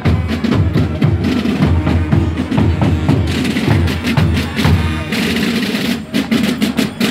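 Drums of a folk march company at a soumonce, large marching drums and snares beating a fast, steady march rhythm.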